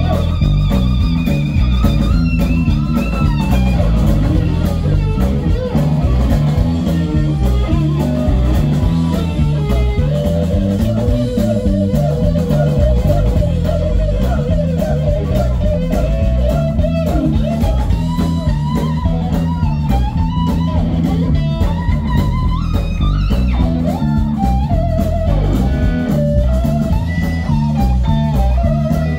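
Live blues-rock band playing an instrumental passage: electric guitar, bass guitar and drums keep a steady beat under a lead line of long held notes that bend up and down.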